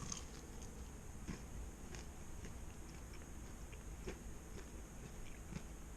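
Biting into and chewing crispy fried chicken wings: faint, scattered crunches and mouth sounds.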